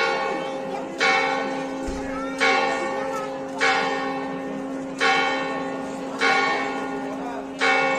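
Church bell tolling for the midday prayer: a single bell struck about seven times, roughly one stroke every 1.2 seconds, each stroke ringing on into the next over a steady low hum.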